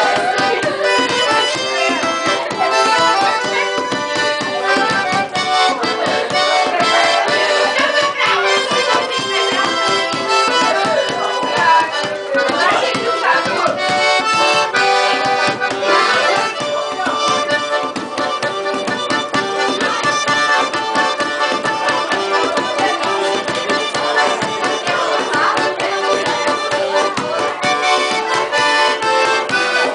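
Sanfona (accordion) playing a lively traditional tune, with steady rhythmic percussion beating along.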